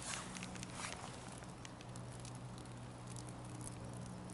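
Small wood fire in a Bushbox XL pocket stove crackling quietly under the pan, with irregular small pops and snaps.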